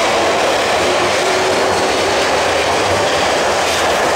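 CNR Changchun DKZ16 metro train accelerating out of the station past the platform: a steady, loud rush of wheels and running gear from the cars going by.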